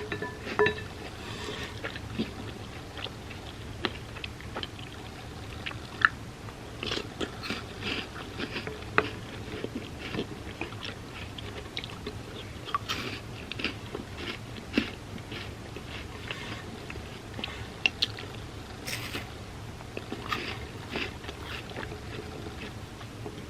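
Close-up eating sounds: chocolate hazelnut-cream wafer cereal in milk being bitten and chewed, with irregular crisp crunches.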